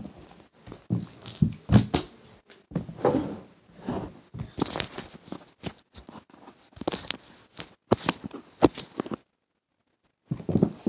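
Slime being stretched and pressed by hand, giving irregular sticky clicks, crackles and small pops, with a brief pause near the end.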